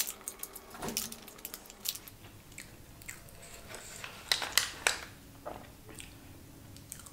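Close-up eating sounds: chewing with wet, sticky mouth clicks, and fingers picking through sauce-covered fries in an aluminium foil tray. There is a burst of louder clicks a little past four seconds in.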